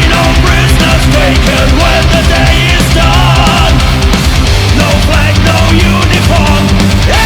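Loud heavy metal music with fast drums and distorted guitars.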